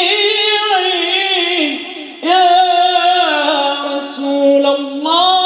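A man singing an unaccompanied Islamic ibtihal (devotional praise song), drawing out long notes with wavering, ornamented pitch. One phrase ends about two seconds in, the next begins right after, and another rises near the end.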